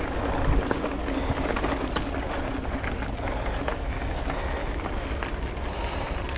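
Riding noise on a bicycle: wind rumbling on the microphone over a steady rush of tyre and road noise, with no clear tones.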